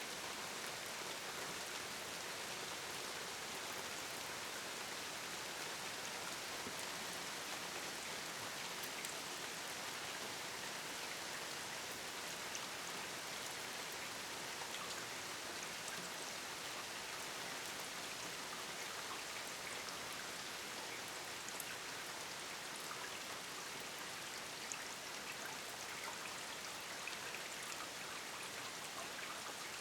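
Steady rain falling, a dense even hiss of drops with scattered individual drop ticks standing out here and there.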